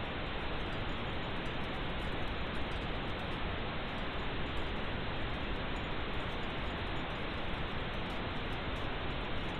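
Steady pink noise: an even, unchanging hiss with no sharper sounds in it, its treble cut off above the middle of the range.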